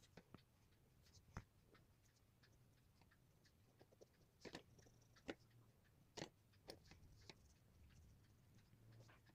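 Near silence with faint, scattered clicks and scratches of a marker tip drawing on a translucent plastic or paper sheet, a few a little louder around the middle.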